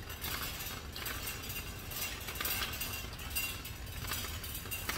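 Background noise of a large store, with a steady low hum and irregular soft rustling and knocks from a phone camera being handled while walking down the aisle.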